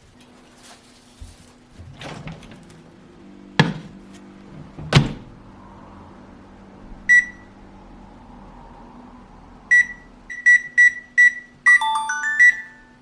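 Microwave oven being set: two sharp knocks, then a series of single electronic beeps as its buttons are pressed, ending in a short run of chime notes near the end.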